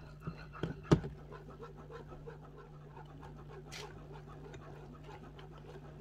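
Wire whisk beating thick béchamel in a nonstick pot, scraping and ticking against the pan, with a few sharp knocks in the first second, the loudest just before one second in. A steady low hum runs underneath.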